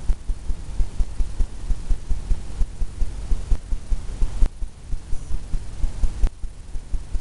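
Artist's brush dabbing oil paint onto a stretched canvas: a steady run of dull low thumps, a few a second, as the canvas takes each tap.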